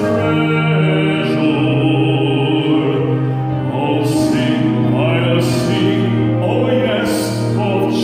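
Men's gospel quartet singing a hymn through microphones, several voices in harmony holding long sustained notes.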